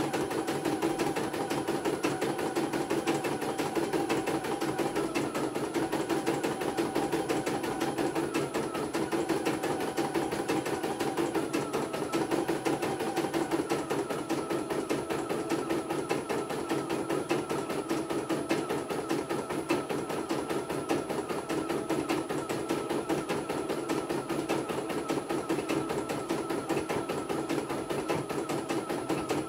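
CNY E900 computerised embroidery machine stitching a design: the needle strokes come in a rapid, steady, even rhythm with the hum of the machine's motor under them.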